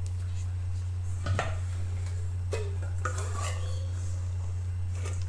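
Metal tongs and a ladle clinking against a wok of crab pieces and a stainless steel bowl: a few separate knocks with short ringing, over a steady low hum.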